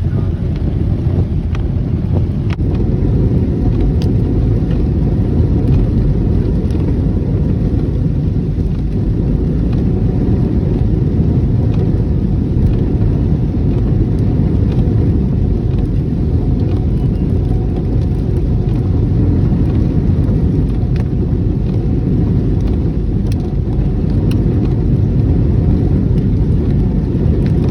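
Steady low rumble of a car driving on the open road, heard from inside the cabin: tyre and engine noise with a few faint ticks.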